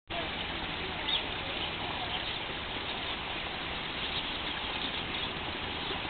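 Steady outdoor background hiss with faint, high, short chirps of small birds; the clearest chirp comes about a second in.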